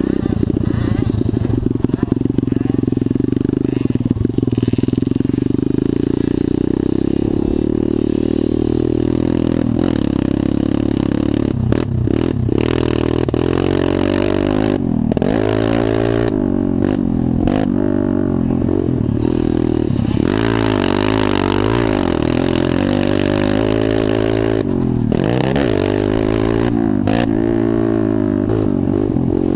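Motocross dirt bike engine being ridden hard around a track, heard close up from a camera on the bike: the pitch climbs and drops again and again as the rider opens and closes the throttle and shifts.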